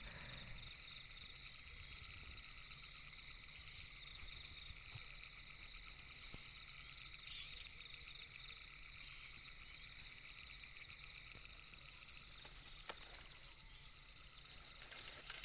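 Faint night-time forest chorus of insects and frogs: steady high trilling, with a high chirp repeating several times a second over it.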